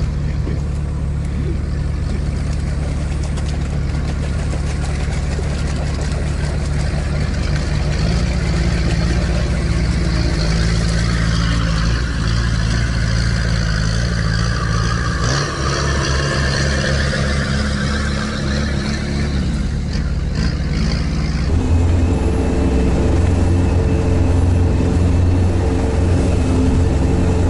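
Sherp all-terrain vehicle's diesel engine running steadily under load while driving, its pitch shifting a few times, about 8, 15 and 22 seconds in. A rushing hiss rises over the engine in the middle and stops a little after 20 seconds.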